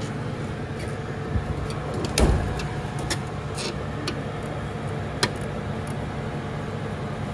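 A few sharp metal clicks and one heavier knock, about two seconds in, from hand tools at work on a truck, over a steady low hum.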